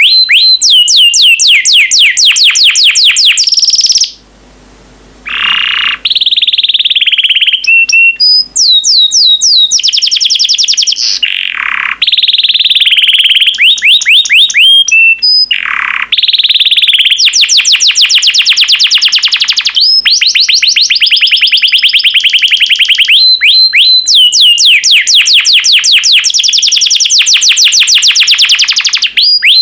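Yellow canary singing a long, loud song of rapid trills of repeated high sweeping notes, with a brief pause about four seconds in.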